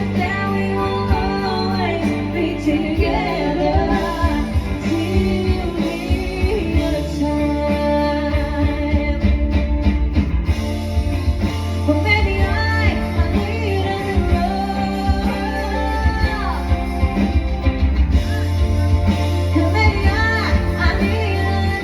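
Live band playing a song, with a singer's voice carried over the instruments and a steady bass underneath.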